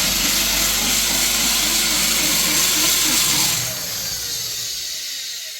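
A handheld power tool's motor running at full speed, then switched off about two-thirds of the way through and winding down with falling pitch.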